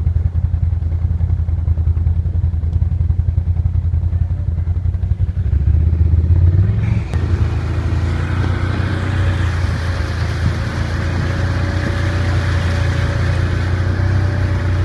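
A motor vehicle's engine running with a steady low rumble, which swells briefly about six seconds in. Just after, a steady hiss and a faint steady whine come in on top of it.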